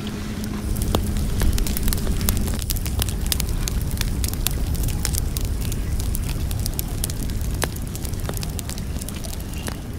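Wood fire crackling, with frequent sharp pops and snaps over a low rumble of burning. A steady low hum stops about two and a half seconds in.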